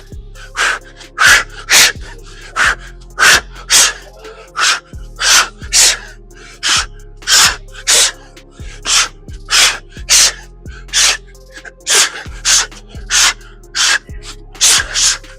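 Short, sharp, forceful exhalations, about two a second at an uneven pace, from a man working hard through plyometric bodyweight exercises, over background music with steady low notes.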